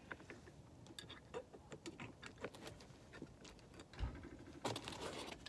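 Scattered light clicks and taps of drum brake springs and hardware being handled and fitted, with a dull thump about four seconds in.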